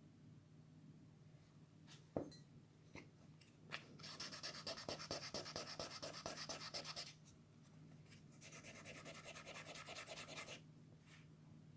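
Sandpaper rubbing rapidly back and forth on a small die-cast metal model car body, in a run of about three seconds followed by a softer run of about two seconds, with a few light clicks of handling before.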